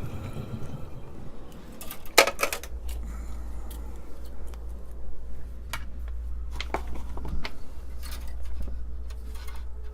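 Small clicks and light clatter from a circuit board and tools being handled on a workbench, loudest in a cluster about two seconds in. A low steady hum comes in shortly after.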